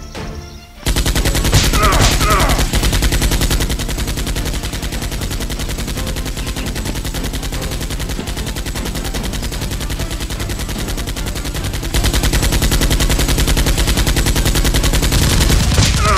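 Continuous rapid automatic-gunfire sound effect, a fast unbroken stream of shots standing in for toy blasters firing in a mock firefight. It starts about a second in and gets louder about twelve seconds in.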